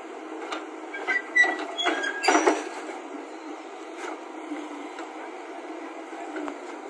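Tracked JCB excavator hauling itself onto a flatbed truck's steel deck: metal-on-metal clanks and short squeals from the steel tracks and bucket against the deck, loudest in a cluster between about one and three seconds in, over the steady noise of the running machine.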